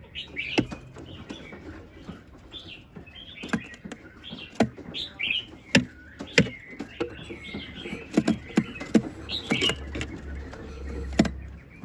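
Chinese hwamei moving about a wooden-floored box, making sharp knocks at irregular intervals as it hops and lands, with short high bird chirps in between.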